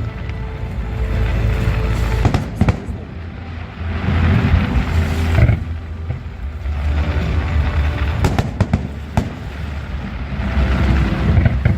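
Fireworks display: deep booms of shells bursting, with several sharp cracks about two and a half seconds in and again around eight to nine seconds in, over music.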